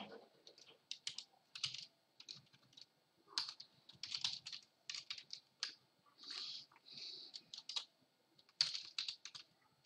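Typing on a computer keyboard: irregular runs of quick keystrokes with short pauses between words.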